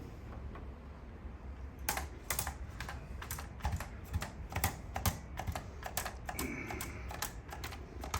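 Irregular run of quick, sharp clicks and taps, several a second, starting about two seconds in.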